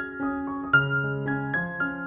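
Background piano music: a melody of struck notes, a new one every quarter to half second, over held lower notes.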